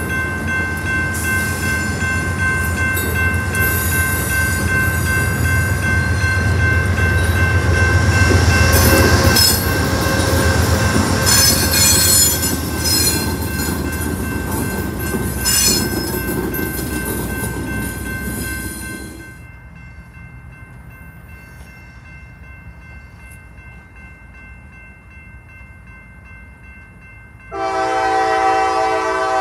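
Amtrak passenger train of Amfleet coaches and a GE P42 locomotive passing close by: a steady rumble of wheels with many sharp clicks over the rail joints, dropping away about two-thirds of the way through as the train clears. Near the end a freight locomotive's horn sounds, a loud chord of several notes.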